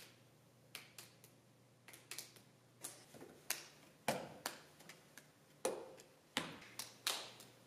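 Hands clapping and slapping in a two-person hand-clapping game: a string of sharp smacks, irregularly spaced at first and coming faster toward the end.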